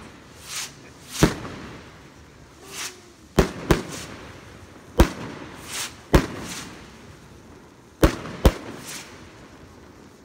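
Argento Titanium Rockets bursting overhead: about seven sharp bangs, two of them in quick pairs, with softer rushing hisses between them.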